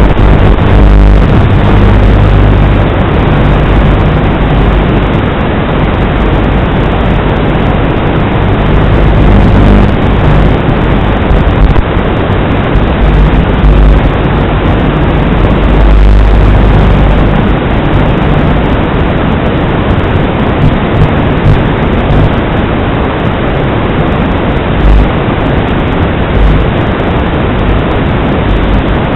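Loud, rumbling wind buffeting on the microphone, swelling and easing throughout.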